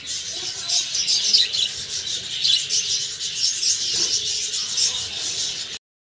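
Budgerigar chirping rapidly and continuously while held in the hand, over rubbing noise from fingers handling the bird. It cuts off suddenly near the end.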